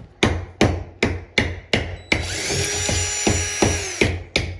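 Hammer striking a nail again and again, about two to three blows a second. About two seconds in, a DeWalt cordless drill runs for about two seconds at a steady speed, and the hammer blows return near the end.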